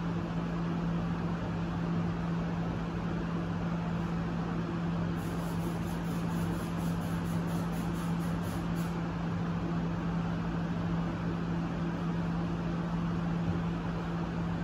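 Steady low hum with an even hiss behind it, unchanging throughout: the room tone of some running machine.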